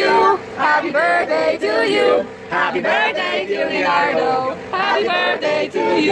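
A group of men and women singing a birthday song together, holding the notes of the tune.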